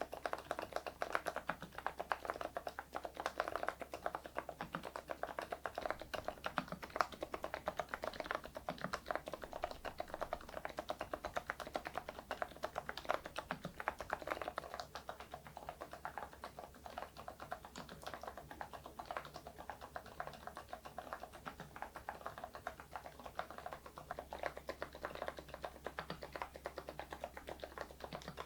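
Mechanical keyboard fitted with thick PBT keycaps being typed on steadily and fast, a dense run of key clacks.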